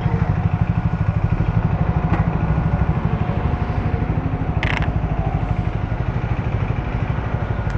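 Motorcycle engine idling with a steady, even low pulse. A brief clatter comes a little past halfway.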